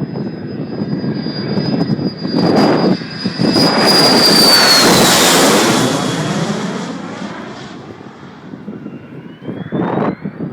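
F-16 fighter jet flying past. Its jet roar swells to a peak about four to six seconds in, with a high whine that drops in pitch as it goes by, then fades away. A shorter swell comes near the end.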